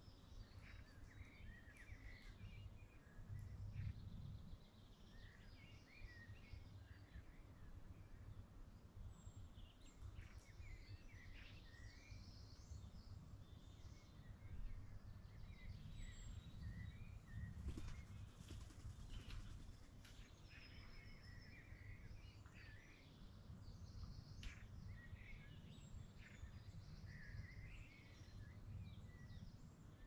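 Faint birdsong: several small birds chirping and singing in short phrases on and off, over a low steady rumble.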